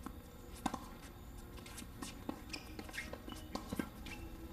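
Scattered short taps and squeaks of tennis balls and court shoes on a hard court between points, irregularly spaced.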